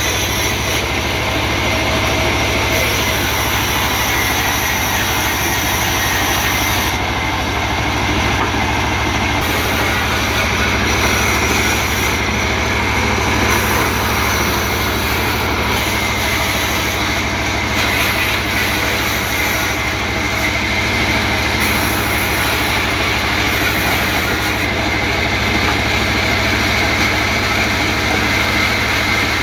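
Sawmill machinery running steadily: a continuous loud drone with a steady high whine over it, unbroken throughout.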